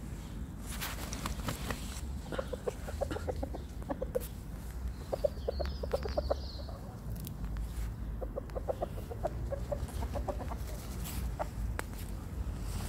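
Chickens clucking in three runs of quick, rapid clucks, with short pauses between.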